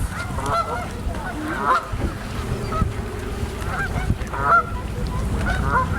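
A flock of geese honking over and over as they take off in alarm, with wind rumbling on the microphone.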